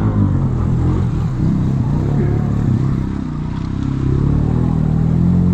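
ATV engine running under load, easing off briefly about three seconds in, then picking up again.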